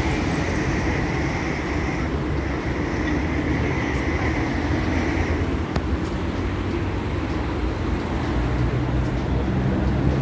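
Steady road-traffic noise from a busy multi-lane road beside a metrobus stop, a constant rumble of passing cars and buses. Near the end a steady engine hum comes in over it.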